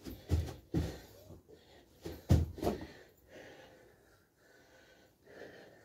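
A man breathing hard mid-burpee, with about four loud, short exhales in the first three seconds, the loudest a little over two seconds in, then quieter panting. There are also thuds of his body and feet on a floor mat as he goes from plank to squat.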